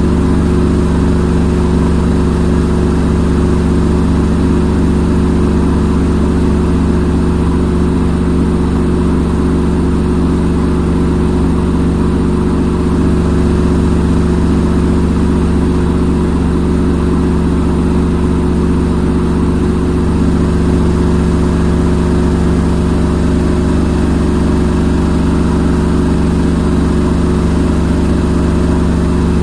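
Front-load washing machine on its spin cycle: the drum motor spinning at a steady speed with a deep, even hum and whir.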